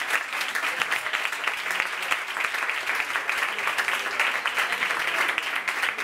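Audience applauding: many hands clapping in a dense, steady patter.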